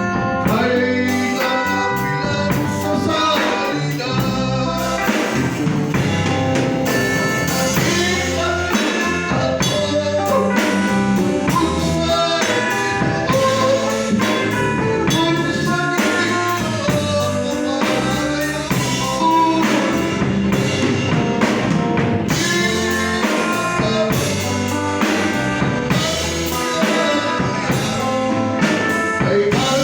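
Gospel worship song played by a band with drum kit, with singing.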